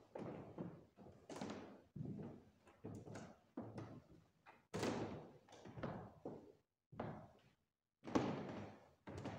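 Footsteps on a hard floor: an uneven series of thuds, one about every half second to second.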